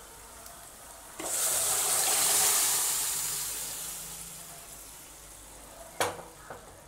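Cooked green gram and its liquid poured into a pan of hot oil with fried shallots: a sudden rush of pouring and sizzling that starts about a second in, swells and fades away over about three seconds. A single sharp knock follows near the end.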